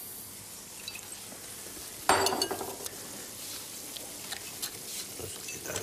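Metal spoon scraping and tapping in a bowl of crushed tomatoes, with a burst of sizzling about two seconds in that fades over about a second, as of food going into a hot pan.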